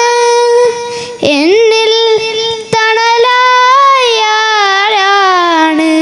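A boy singing a Malayalam devotional madh song (nabidina ganam) solo into a microphone, drawing out long, bending notes with short breaths about a second in and near three seconds.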